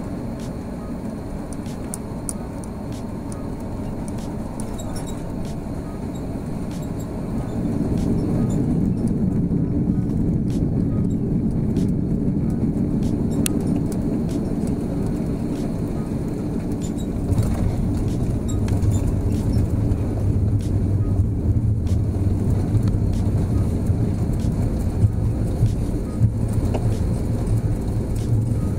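Cabin noise of an Airbus A340-600 landing: steady engine and airflow noise that steps up about seven seconds in as the wheels touch down. A deeper rumble joins from about seventeen seconds in as the airliner rolls and slows along the runway.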